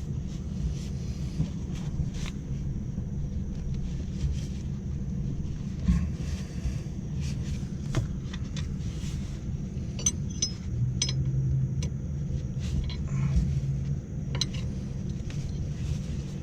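Steady low rumble with scattered light metallic clicks and clinks from hand tools, such as a ratcheting wrench, as the blower belt and motor pulley of the rooftop unit are tensioned. A steady low hum joins in for a few seconds past the middle.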